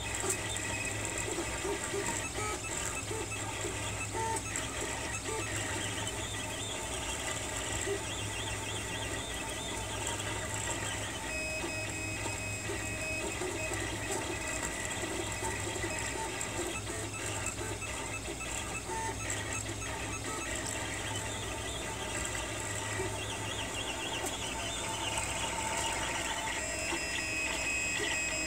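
Printrbot Simple Metal 3D printer printing at 45 mm/s: its stepper motors whir and whine in shifting pitches as the print head moves, over the steady hum of the cooling fans.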